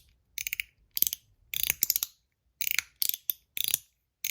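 Stainless steel MOT Groove mechanical slider fidget being slid through its detent positions, clicking in about seven quick rattling bursts.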